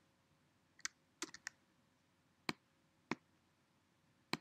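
Keystrokes on a Mac computer keyboard and clicks of a mouse or trackpad, about seven separate sharp clicks, a few close together a little after a second in: the copy-and-paste shortcut, Command C then Command V.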